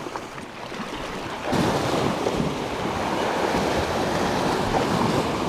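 Sea waves breaking and washing over shoreline rocks, the surge swelling about a second and a half in and holding, with wind buffeting the microphone.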